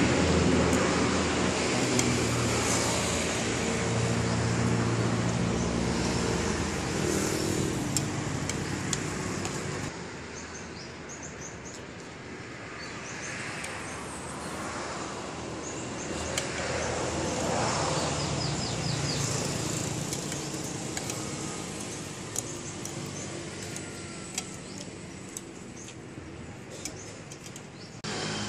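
Road traffic passing close by: a motor vehicle's engine is loud at first and fades away over the first ten seconds. Quieter passing traffic follows, with small birds chirping and an occasional clink of a spoon on a plate.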